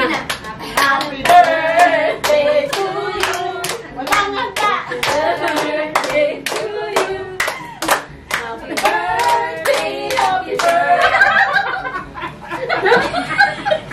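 A group of women singing a birthday song and clapping along in time, about two claps a second. Near the end the song gives way to laughter and chatter.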